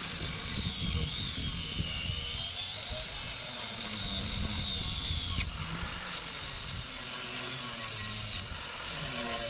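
Angle grinder with a cutoff wheel cutting through steel tubing. Its high whine sags and climbs in pitch as the wheel bites into the metal and eases off, rising sharply about halfway through and again near the end.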